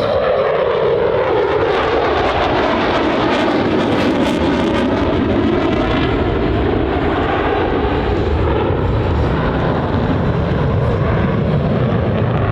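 EA-18G Growler jets with General Electric F414 engines making a low, fast pass, the engine noise dropping in pitch as they go by. A loud, steady jet roar follows.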